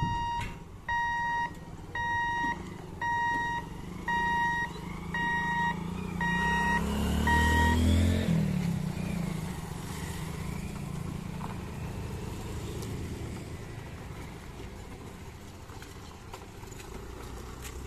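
Level-crossing warning hooter beeping about once a second while the boom barrier lifts, eight beeps stopping about eight seconds in. Under the beeps, motorcycles and scooters start off and pull across the tracks, their engines loudest as the beeps stop, then settling into a steady traffic hum.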